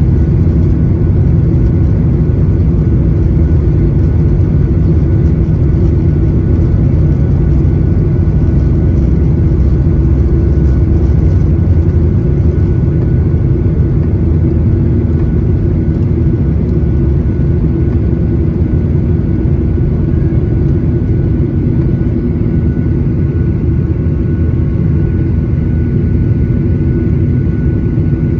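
Boeing 737-900ER's CFM56-7B jet engines at takeoff thrust, heard from inside the cabin over the wing. A loud, steady roar with a low drone and a faint high whine carries through the takeoff roll and liftoff.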